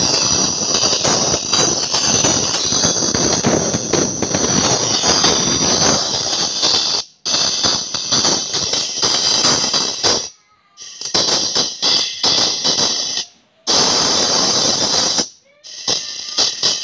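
Music played through a 4 by 10 inch tweeter wired through a frequency divider, its sound strongest in the treble. The sound cuts out suddenly four times for a moment and comes back.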